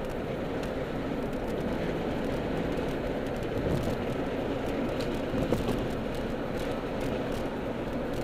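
Steady engine and tyre noise of a moving car, heard from inside the cabin, with two brief knocks about four and five and a half seconds in.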